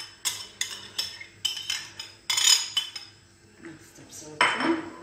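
A metal utensil tapping against a glass bowl about three times a second for the first three seconds, each tap with a short ring, as grated onion is knocked off into a bowl of cut potatoes. A softer scrape and clatter of the utensil in the bowl follows about four seconds in.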